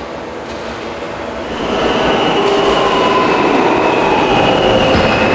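New York City subway train, an F local, running through the station: its rumble gets louder about two seconds in, with steady high whining tones from the motors and wheels.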